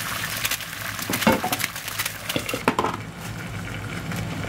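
Egg and ham sizzling in a frying pan, with a few clinks and knocks as a glass pan lid is handled and set on the pan. The sizzle turns quieter and more muffled once the lid is on, about three seconds in.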